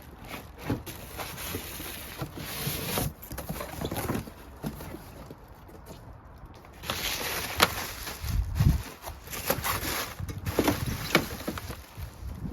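Irregular handling noises: rustles, clicks and knocks, with a louder cluster of knocks and a few sharp clicks from about seven seconds in.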